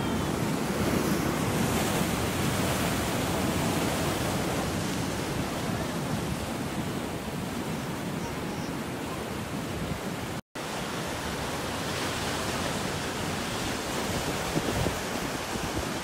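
Ocean surf breaking against a rock platform, a steady wash of waves mixed with wind on the microphone. The sound cuts out for an instant about ten seconds in.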